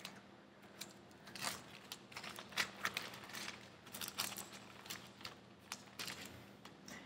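Pages of a Bible stuffed with loose papers being leafed through by hand: a string of soft, irregular paper rustles and flicks.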